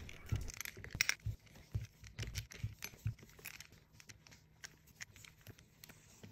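Faint clicks and light metallic ticking of a folding hex key turning the bottom preload adjuster out of a suspension seat post. The clicks come thickest in the first few seconds and thin out after that.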